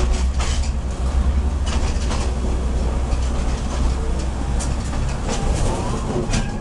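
SRT diesel train running slowly along the track, heard from on board: a steady low engine rumble with the wheels clicking over the rail joints every second or so.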